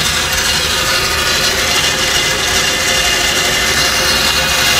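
Electric ATV winch with a 1.5 hp permanent-magnet motor and single-stage planetary gear train running steadily, reeling its synthetic rope back onto the drum with a steady motor and gear whine.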